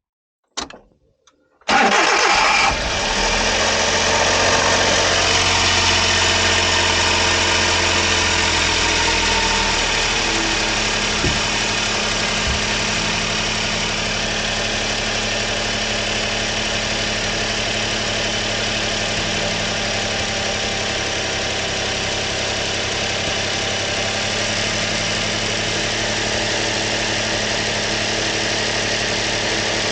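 Suzuki Carry DA63T kei truck's 660 cc three-cylinder engine started after an oil change: it fires up suddenly near two seconds in and runs at a raised fast idle. About ten seconds in it settles to a lower, steady idle.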